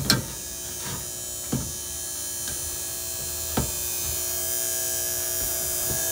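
Old dusk-to-dawn barn light fixture giving off a steady, really loud electrical buzz, growing louder as it is approached, with a few sharp knocks. The buzz is a sign of the worn-out fixture failing, which can't be good.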